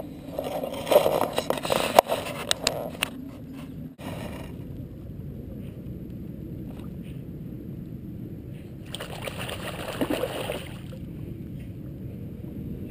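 Czech Wolfdog wading in shallow water: splashing and sloshing, with several sharp clicks in the first few seconds. After an abrupt cut comes a steady low water sound, and another stretch of splashing about nine to ten and a half seconds in.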